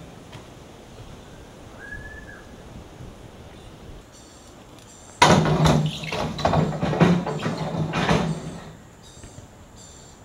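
A BMX bike hits the stair rail a little over five seconds in and its pegs grind down it for about three and a half seconds, a loud metal scrape over a steady low hum. Before that, birds chirp briefly over quiet outdoor background.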